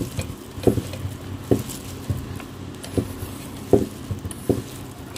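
Hand squeezing and kneading raw chicken momo filling with chopped onion in a steel bowl: soft squelches in a loose rhythm, about one every three-quarters of a second.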